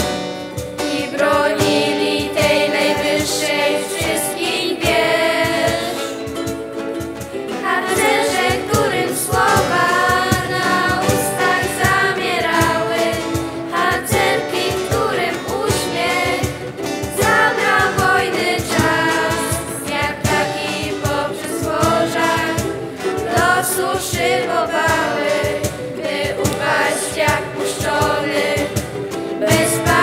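A youth vocal ensemble singing a song in several parts, accompanied by strummed acoustic guitar and ukulele.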